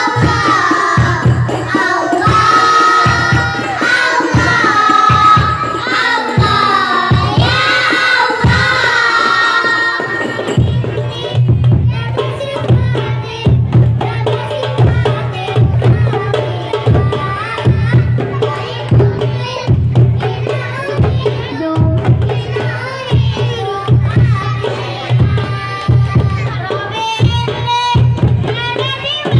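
Children singing together into microphones over rebana frame drums beating a steady rhythm. About ten seconds in the singing stops and the rebana drums play on alone; the voices come back near the end.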